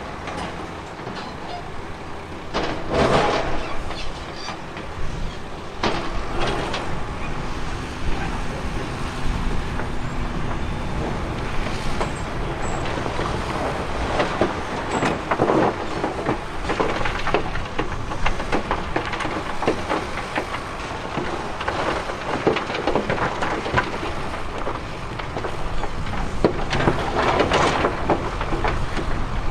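Heavy earthmoving machinery working rock: an engine running under load with continuous clanking and scraping, and louder crunches a few seconds in, around the middle and near the end.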